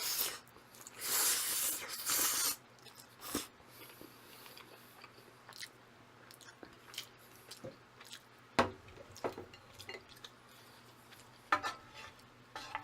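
A person eating black-bean-sauce instant noodles close to the microphone: a loud slurp of noodles in the first two and a half seconds, then chewing with scattered small clicks and smacks.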